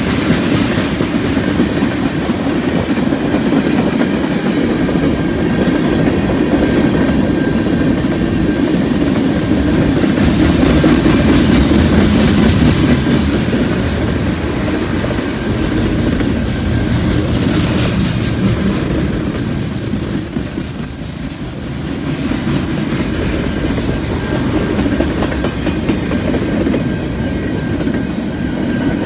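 Freight train cars (tank cars, covered hoppers and intermodal well cars) rolling past, their steel wheels rumbling and clacking over the rail joints, the sound dipping briefly about twenty seconds in.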